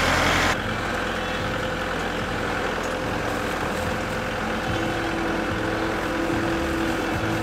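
Kubota L4701 tractor's diesel engine running steadily; its sound drops in level and changes character about half a second in.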